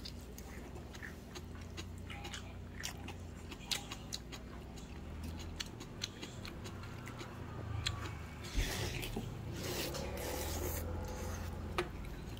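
A person eating noodle soup from a stainless steel bowl with chopsticks: scattered light clicks and scrapes of the chopsticks against the bowl, and noodles slurped in a couple of short noisy bursts in the second half.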